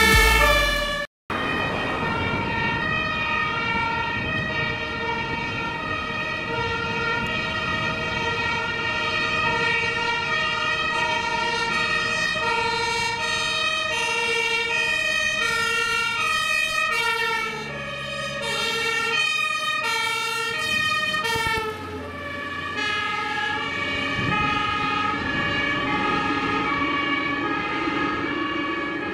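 Two German fire engines on an emergency run sounding their two-tone horns (Martinshorn), alternating high and low; in the middle stretch the two horns overlap out of step with each other. The electronic intro music cuts off about a second in, and the horns ease off somewhat near the end as the trucks drive away.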